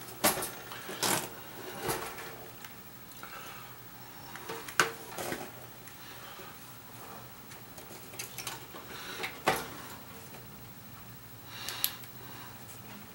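Irregular sharp clicks and knocks, about eight of them, from a metal-bodied toaster and its parts being handled and shifted on a bench; the loudest come about five and nine and a half seconds in.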